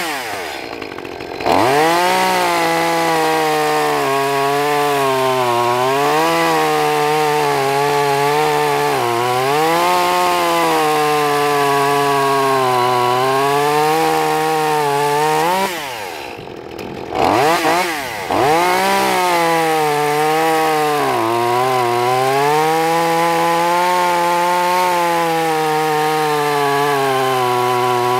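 Echo CS-2511T top-handle chainsaw's small two-stroke engine revving and cutting through logs, its pitch sagging and recovering as the chain bites. It drops back to idle twice, near the start and about halfway through, then revs up again with a rising whine.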